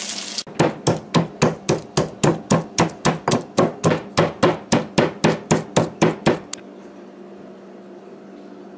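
Stone pestle pounding garlic and hot pepper in a granite-style stone mortar. It strikes about twenty times at a steady three or four a second, then stops about six and a half seconds in.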